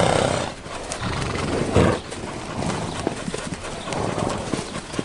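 Lipizzaner horses' hooves clopping, many irregular hoofbeats overlapping.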